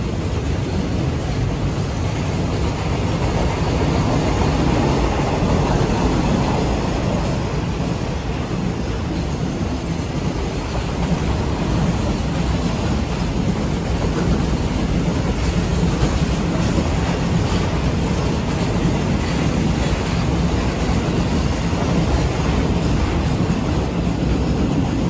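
Freight train rolling past on the track: a steady rumble of wagon wheels on the rails, with some faint clicking from the wheels over rail joints.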